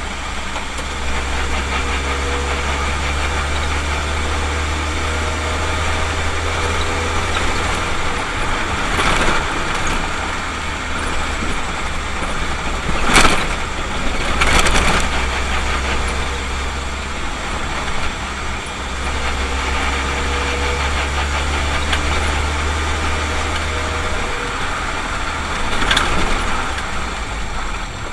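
A car's engine and road noise heard from inside the cabin through a dashcam: a steady low hum with a few sharp knocks, the loudest about 13 seconds in.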